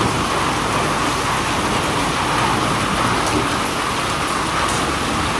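Heavy rain pouring steadily onto a paved courtyard, an even hiss with no let-up.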